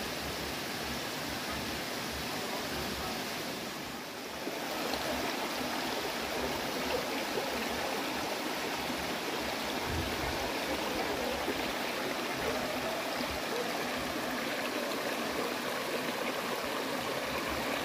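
Shallow, rocky forest stream running over and between stones, a steady babbling rush of water that dips slightly about four seconds in.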